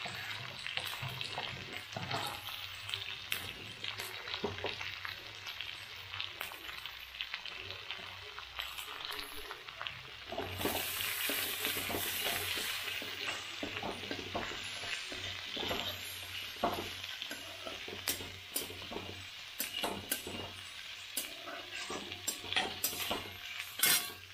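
Sliced onions and green capsicum sizzling in oil in a metal kadai, stirred with a metal spatula that scrapes and clinks against the pan again and again, the sharpest clinks near the end.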